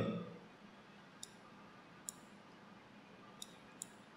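Computer mouse clicking: four single, quiet clicks spaced irregularly a second or so apart as a stock chart is dragged across the screen, over faint room tone.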